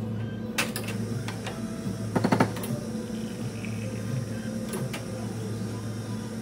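Steady low machine hum with scattered sharp clicks and a short rattling clatter about two seconds in, like small objects or equipment being handled at a work counter.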